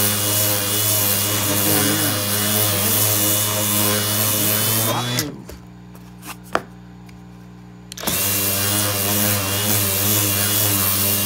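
DeWalt random orbital sander running steadily with a high whine as it sands a small thin board. About five seconds in it winds down and stops, a couple of sharp knocks follow, and about three seconds later it starts up again and sands on.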